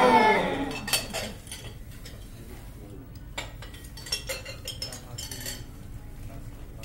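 Scattered light clinks and taps of chopsticks and utensils against porcelain plates and a serving platter, a few separate strikes spread over several seconds.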